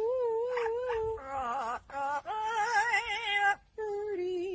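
Drawn-out, wavering animal calls with a trembling pitch, in three stretches cut apart by short sudden breaks.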